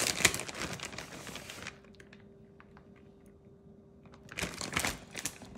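Plastic bag of shredded mozzarella crinkling as the cheese is shaken out of it, stopping about a second and a half in. Another short burst of rustling and crinkling comes about a second before the end.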